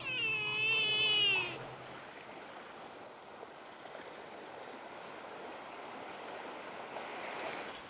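A young cat gives one drawn-out meow lasting about a second and a half. Then small waves wash softly on the sandy shore, growing a little louder near the end.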